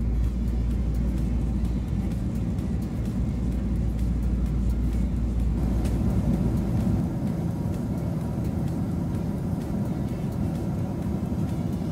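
Steady cabin roar of a Boeing 767 jet airliner's engines and airflow in flight, heard inside the cabin at a window seat. The deepest part of the rumble drops away about halfway through.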